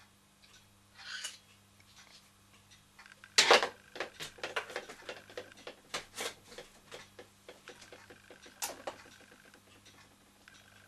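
Handling noises at a workbench: a brief hiss about a second in, then a loud knock as a large plastic syringe is set down on the bench, followed by a run of light clicks and taps while an oil can is picked up.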